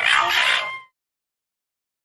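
Raccoon dog giving a short, harsh, raspy call that fades out within the first second, followed by dead silence.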